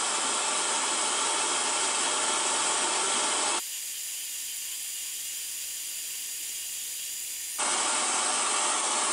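Scroll saw running with a fine No. 5 blade, cutting Cedar of Lebanon: a steady hissing noise. For a few seconds in the middle it turns abruptly thinner and higher, then changes back.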